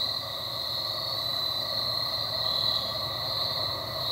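Steady chorus of insects in the woods, a continuous high-pitched drone that does not let up.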